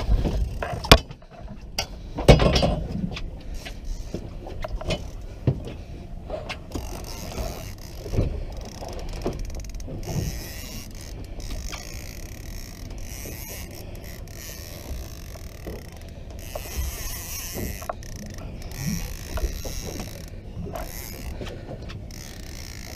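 Conventional fishing reel being cranked under heavy load against a hooked leerfish, its gears whirring and clicking steadily. There are a couple of loud knocks in the first few seconds.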